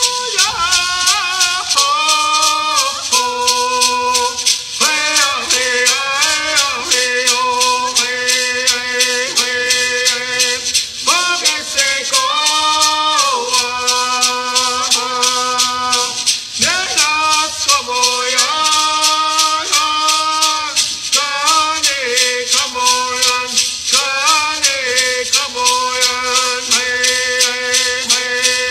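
Singing in held notes with gliding changes of pitch, accompanied by a hand rattle shaken in a steady, even beat; the last note slides down at the end.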